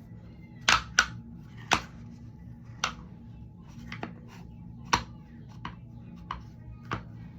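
Slime being squished and kneaded by hand, giving about ten irregular sharp pops and clicks, the loudest in the first two seconds.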